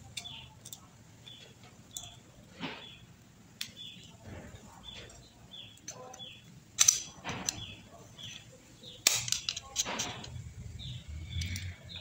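Small metal parts of an electric fan motor's bearing housing clicking and scraping as it is taken apart by hand to free its retaining washers, with sharper clicks about seven and nine seconds in.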